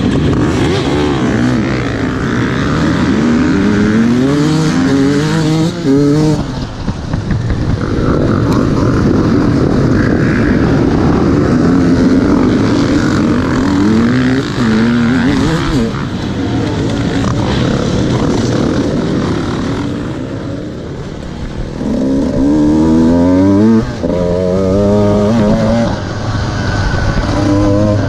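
Off-road dirt bike engines at full throttle: the near bike's engine revs up and climbs in pitch through the gears in several runs, with other motorcycles running around it.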